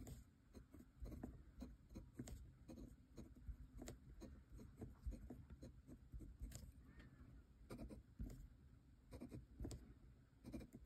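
Kakimori brass dip-pen nib scratching faintly across notebook paper in many short, irregular strokes as letters are written.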